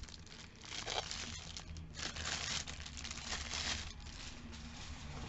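Crinkling of the plastic wrapping on a packaged Santoku kitchen knife as it is handled and moved, loudest for a couple of seconds starting about two seconds in.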